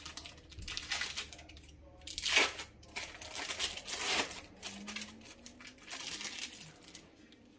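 Plastic film wrappers of processed cheese slices being peeled off and crinkled in a run of irregular rustling bursts, the loudest about two and a half and four seconds in.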